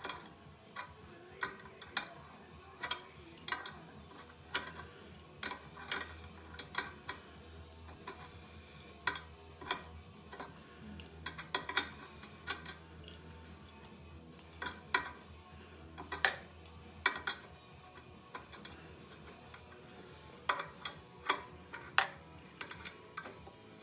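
Adjustable spanner and steel pipe-fitting nuts on a Yong Heng compressor head, clicking and clinking irregularly as the fittings are threaded on and tightened by hand.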